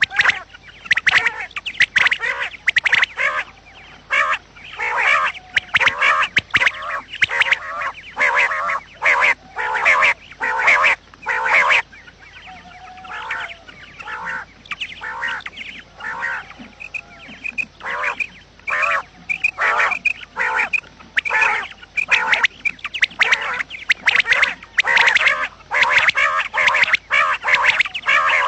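Quail calling over and over, short calls packed into quick runs, growing softer and sparser for a few seconds around the middle before picking up again.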